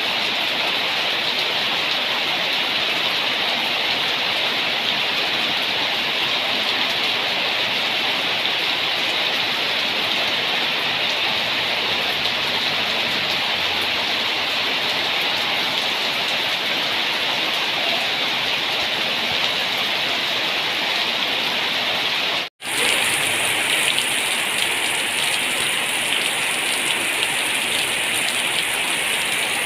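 Steady heavy rain, an even hiss of falling drops. About three-quarters of the way through it cuts out for a split second and comes back slightly brighter, as at a splice between recordings.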